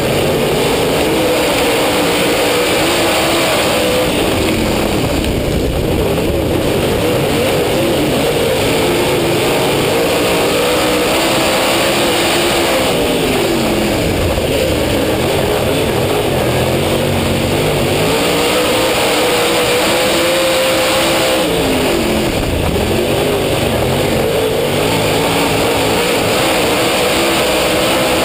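Dirt Late Model race car's V8 engine at racing speed, heard close up from on the car, its pitch climbing on the straights and falling off into the turns, twice dropping and winding back up. A steady rush of wind and noise runs under the engine.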